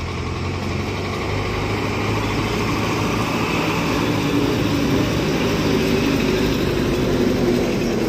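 Bus engine running as the bus drives up and passes close by, growing steadily louder and peaking in the second half.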